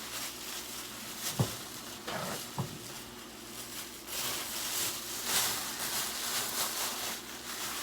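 Two light knocks, then a plastic bag rustling and crinkling as it is handled.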